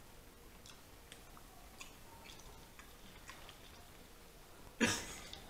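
Quiet chewing during a seafood meal, with faint scattered clicks of eating. A louder sudden noise comes near the end.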